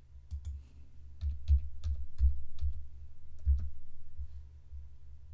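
Computer keyboard keys tapped in an irregular run of clicks, busiest in the middle, over a steady low hum.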